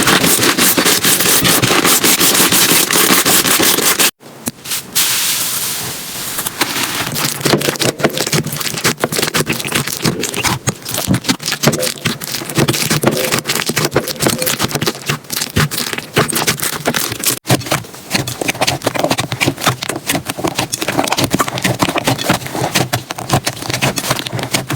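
Slime being squeezed and pressed by hand, giving dense crackling and popping. The sound changes abruptly about 4 seconds in and again about 17 seconds in; the first stretch is the loudest and busiest.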